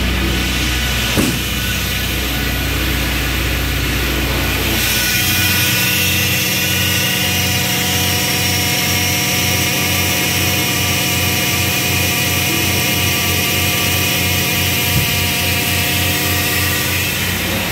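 2015 Dodge Caravan's 3.6-litre Pentastar V6 idling steadily, with a small tap about a second in. About five seconds in, the sound turns hissier and thinner, with a faint even pulsing, as it is heard up close over the open engine bay.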